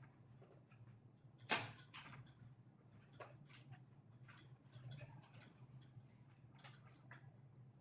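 Faint clicks and scrapes of a bicycle tyre and tyre lever being worked over the wheel rim, with one sharper click about a second and a half in.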